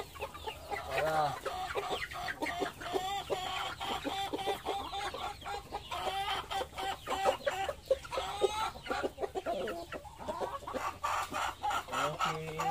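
A flock of young chickens clucking and calling, many short calls overlapping without a break, as they crowd round to feed.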